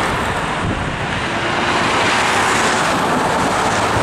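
Race team support cars driving past close by at speed: a steady rush of tyre and engine noise, with wind on the microphone.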